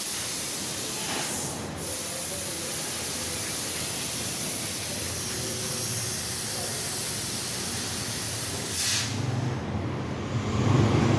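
CNC cutting machine cutting with a steady high-pitched hiss that drops out briefly about a second and a half in and stops about nine seconds in, leaving a lower rumble near the end.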